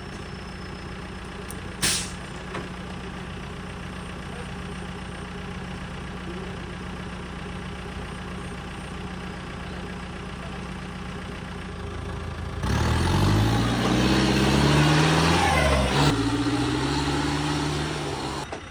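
Off-road 4x4's engine idling steadily, with one sharp knock about two seconds in. About twelve seconds in the engine is revved hard, its pitch climbing and dropping several times for about six seconds, with a noisy wash on top, as the vehicle is driven hard.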